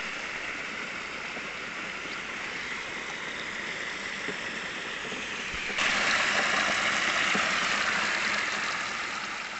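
Steady rush of water and sand slurry gushing through and out of a 3-inch discharge hose on a water-pressure sand suction rig. It gets abruptly louder about six seconds in.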